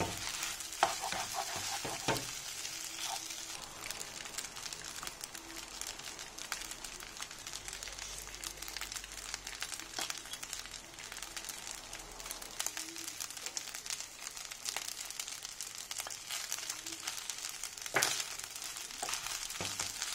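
Fried rice with egg and bak kwa sizzling steadily in a hot non-stick frying pan. A wooden spatula scrapes and tosses the rice against the pan in the first couple of seconds and again near the end.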